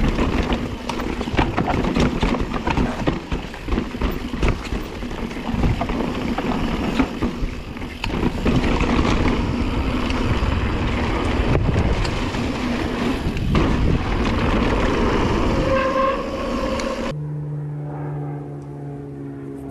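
Mountain bike riding fast down a rocky trail: tyres rumbling over rock, with frequent knocks and rattles from the bike and wind noise on the microphone. A brief squeal comes near the end. Then the sound cuts off suddenly, leaving a quieter steady hum of several held tones.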